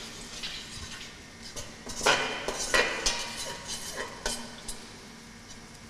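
Metal slotted ladle scraping and clinking against a stainless steel pot while stirring tomato and pepper paste frying in oil. The loudest scrapes come about two to three seconds in.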